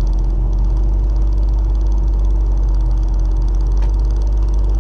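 2005 Dodge Magnum's engine idling steadily, a constant low drone, with one faint click about four seconds in.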